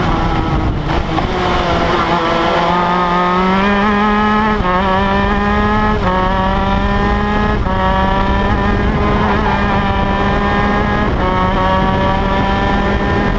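Shifter kart's 125cc two-stroke engine heard onboard under full throttle, its pitch climbing and then dropping abruptly four times as the driver shifts up through the gears.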